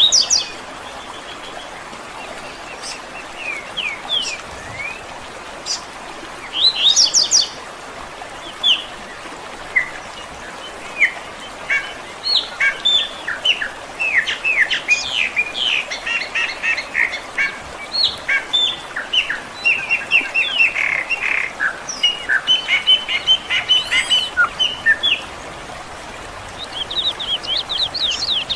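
Several wild birds chirping and singing, a few scattered calls at first, then dense overlapping chatter of quick chirps through the middle, over a steady soft background hiss.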